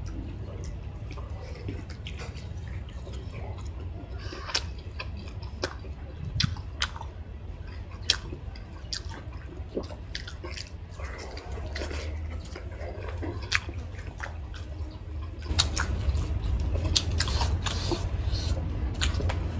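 People chewing and biting into chicken leg with rice, with scattered short wet clicks and smacks of eating over a steady low hum; the eating sounds get louder and busier about three-quarters of the way through.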